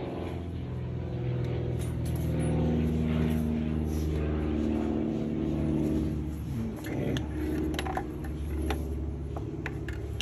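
A nearby engine running steadily with a low hum, its pitch dipping and coming back up briefly about two-thirds of the way in. A few sharp metallic clicks of hand tools come near the end.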